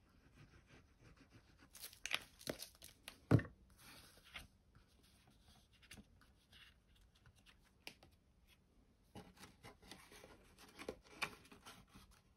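Card stock and patterned paper being handled: scattered rustling and light scraping as a glued paper panel is picked up and pressed into the bottom of a card box, with a single sharp knock about three seconds in.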